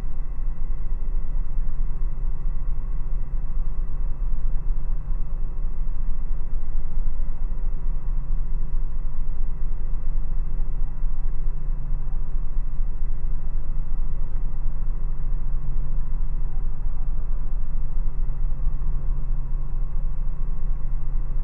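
Robinson R44 helicopter's six-cylinder Lycoming piston engine and rotors running steadily in cruise flight, heard inside the cabin as a loud, even low hum with a faint regular pulse.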